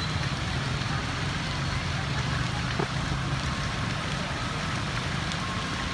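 Vehicle engine running amid a steady rush of heavy rain and water, with a single short knock about three seconds in.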